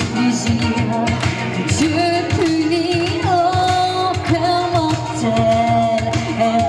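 A woman singing into a microphone over backing music with a steady beat, holding long notes in the second half.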